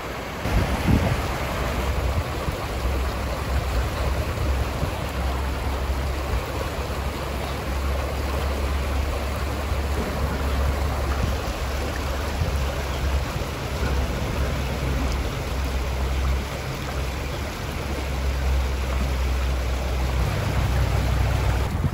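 Shallow river riffle: water rushing steadily over rocks, with a low rumble that comes and goes underneath. It gets louder about half a second in.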